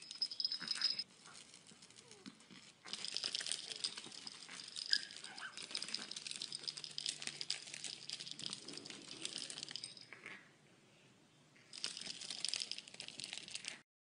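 Toy rattle shaken hard: dense, dry rattling and crinkling clicks in two stretches of several seconds, with a short pause between them about ten seconds in. A brief high whistle sounds at the very start.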